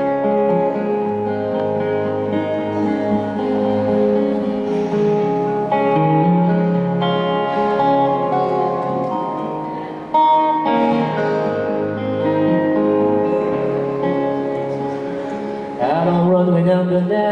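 Acoustic and electric guitar playing an instrumental break between sung verses, with held melody notes over steady chords. A wavering note comes in near the end.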